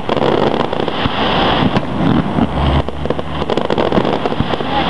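Aerial fireworks shells launching and bursting: many sharp cracks and pops over a steady noisy din.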